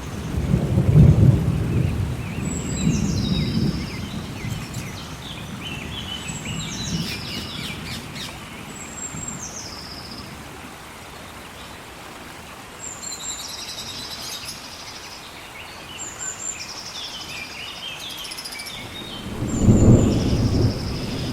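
Thunder rumbling over steady rain, loudest about a second in and again near the end, while birds give short high calls that step down in pitch, repeated many times.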